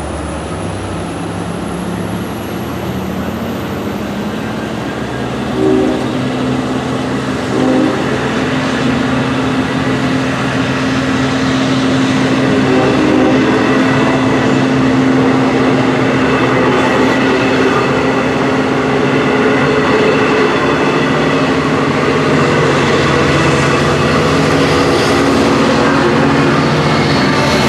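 Long Island Rail Road train led by a DM30AC diesel locomotive pulling out and passing at close range with its bi-level coaches, the engine's steady hum growing louder over the first ten seconds and then holding. There are two short horn blasts about six and eight seconds in.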